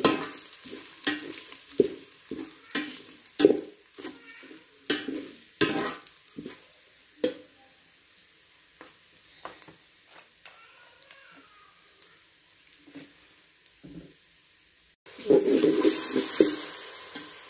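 A metal slotted spatula scraping and knocking against a metal pot while stirring onions and spices frying in oil, about two knocks a second at first, then fewer and quieter. Near the end, water goes into the hot pot with a loud rushing sizzle and bubbling.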